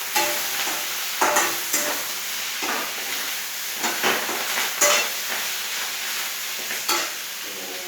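Rayo saag (mustard greens) sizzling as it fries in a pan, with a spatula stirring and scraping against the pan about seven times. The greens are close to catching and burning on the pan.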